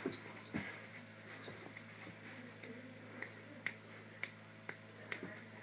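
A series of faint, sharp clicks, irregular and roughly every half second, over a low steady hum.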